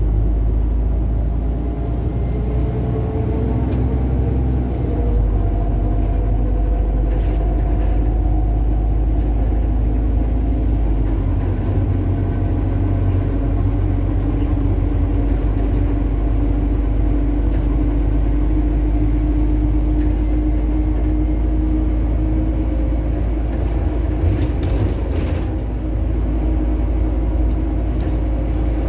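SOR city bus running, heard from inside the passenger cabin: a steady low rumble with a whine that slowly rises in pitch partway through.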